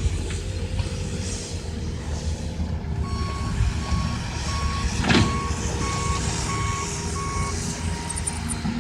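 A vehicle's reversing alarm beeps about twice a second, starting about three seconds in and stopping shortly before the end, over the steady low rumble of a diesel engine. A single sharp knock sounds about five seconds in.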